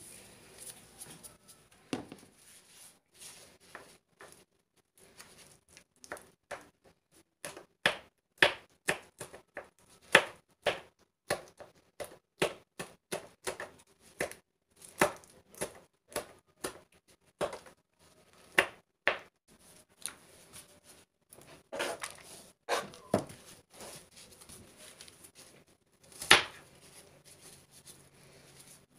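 Kitchen knife chopping green chillies on a plastic cutting board: irregular sharp knife strikes, about one or two a second after a sparse start, with one louder strike near the end.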